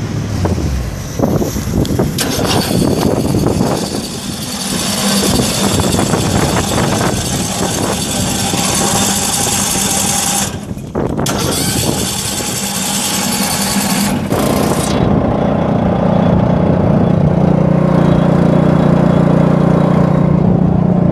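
Small gas engine on a Monroe tailgate spreader (Briggs & Stratton 10.5 HP) running steadily to drive the spreader. For the first part it is mixed with loud rushing noise that stops about 15 seconds in, leaving the engine's steady hum.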